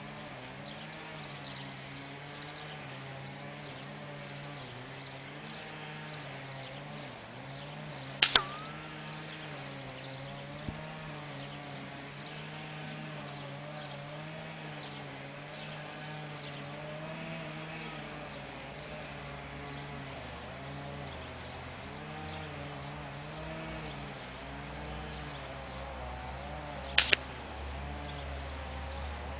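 Two shots from a Diana 75 spring-piston air rifle, each a short sharp crack, about 19 seconds apart. A steady wavering drone runs underneath.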